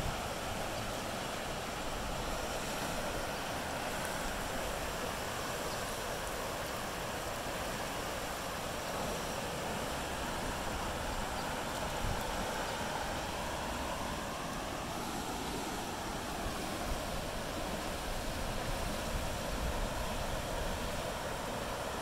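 Flooded, muddy creek running high and fast over its banks, a steady rush of water.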